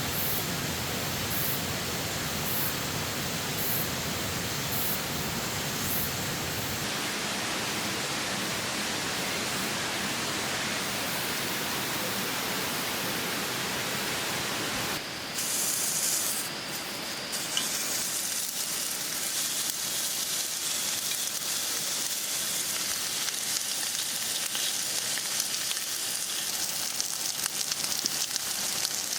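A steady rushing hiss gives way, about two-thirds of the way in, to pork belly sizzling and crackling as it fries in a pan.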